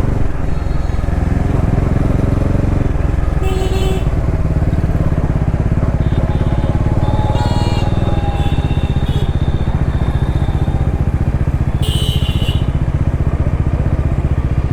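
Bajaj Dominar 400's single-cylinder engine running steadily while the motorcycle is ridden on the road. Three short high-pitched tones sound over it, about a quarter, half and four-fifths of the way through.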